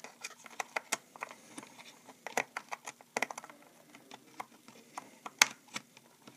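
Irregular small clicks and taps of a laptop RAM stick being worked into its memory slot by hand, plastic and metal knocking as the module is pushed and seated. The sharpest click comes about five seconds in.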